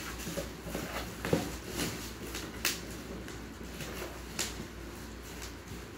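Plastic wrapping rustling and crinkling as a wrapped kitchen item is handled and pulled out of a cardboard box, with a few short sharp crackles.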